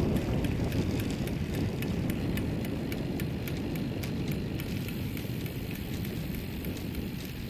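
Wind rushing over the microphone with road rumble while following a cyclist, and a light regular ticking about four times a second that fades out about halfway through.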